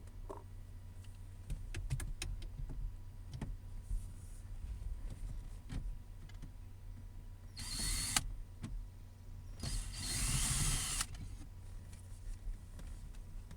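Small clicks and knocks of a car's center console being taken apart. Two short, loud, noisy whirring bursts come about 8 s in and from about 10 to 11 s in.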